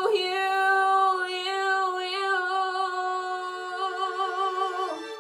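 A young woman singing a long held note, re-sung on a few syllables, over a quiet held backing chord. Near the end her voice slides down and stops.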